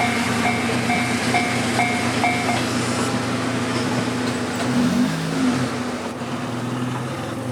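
Japanese level-crossing warning alarm chiming about twice a second, then stopping about two and a half seconds in, over a train's steady low hum.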